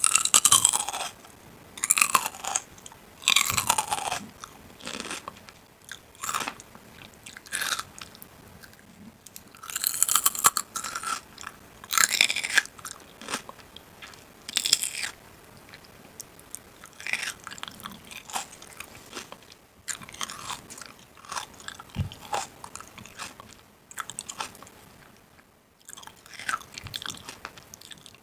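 Crisp crunching sounds in short, irregular bursts about every one to two seconds, from something crunchy being bitten, cut or broken.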